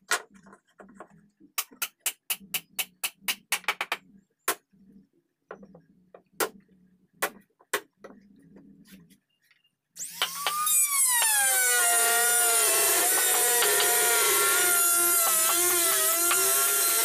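Hammer tapping on a teak board: a quick run of taps, then single knocks with pauses between. About ten seconds in, a handheld trim router starts and runs on with a loud, steady high whine.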